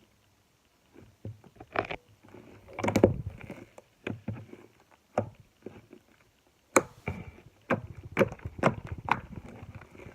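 Slime being squished, with irregular bursts of sticky clicks and pops separated by short pauses.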